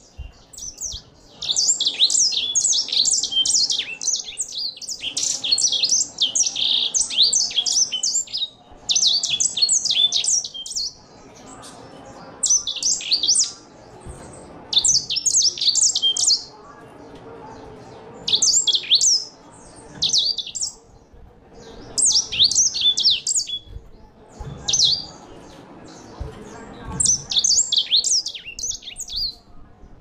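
Grey singing finch singing: a long, fast run of high twittering notes over the first several seconds, then shorter bursts of song every couple of seconds.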